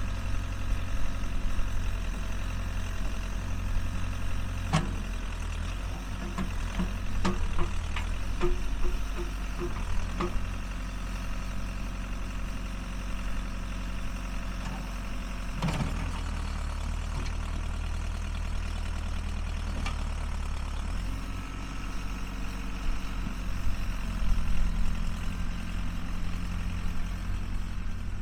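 Case 580B backhoe's engine running steadily, with several sharp knocks and clanks between about five and ten seconds in and another near sixteen seconds. The engine note shifts a few times after that.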